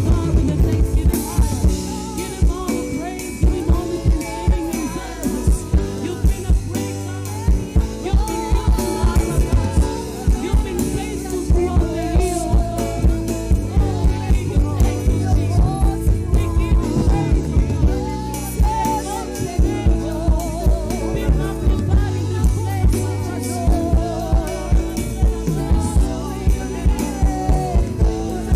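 Live gospel worship band playing an upbeat song, with a drum kit keeping a steady beat on kick and snare under a singing voice carrying the melody.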